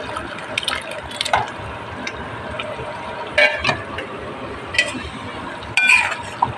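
Steel bowl and spoon clinking and scraping against a stainless steel pot as paneer cubes are tipped into tomato gravy and stirred, several sharp ringing metal clinks over a steady background hiss.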